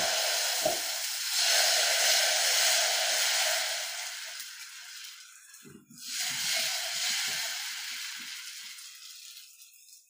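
Wheat-flour dosa batter sizzling as it is poured onto a hot tawa and spread with a ladle. The sizzle fades, breaks off about six seconds in, then starts up again and fades. A couple of soft thuds sound near the start.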